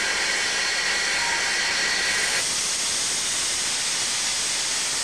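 Steam hissing steadily from an LB&SCR A1X 'Terrier' 0-6-0 tank locomotive, escaping low at the front by the cylinders. The hiss changes abruptly about two and a half seconds in.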